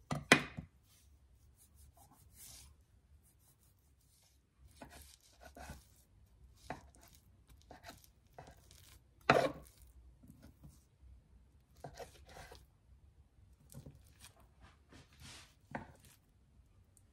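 Kitchen knife slicing lengthwise through a soft rolled yeast-dough log with nut filling, its blade tapping and scraping on a wooden worktop in short, irregular knocks. The sharpest knocks come about a third of a second in and about nine seconds in.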